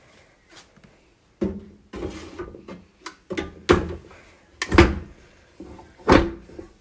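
Metal bread pan being set into a bread machine's baking chamber and pushed down to lock in place: a string of metal clunks and knocks, the three loudest about a second apart.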